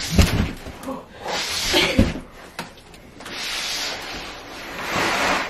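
A cardboard-boxed 33 kg queen foam mattress being hauled up carpeted stairs: the box knocks and scrapes against the steps, with two heavier thumps about two seconds apart, between long rushing breaths of effort.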